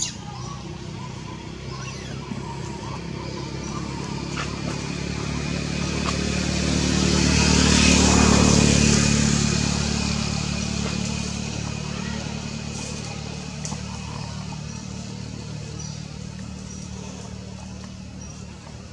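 A motor vehicle driving past: its engine grows louder to a peak about eight seconds in, then fades away over the following several seconds.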